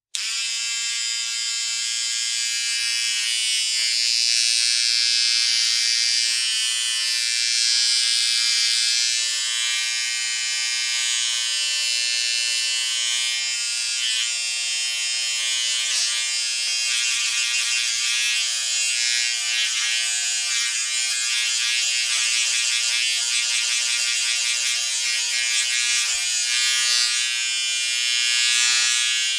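Portable electric shaver running with a steady high-pitched buzz, its sound slowly swelling and shifting in the upper range and turning rougher and more uneven about halfway through.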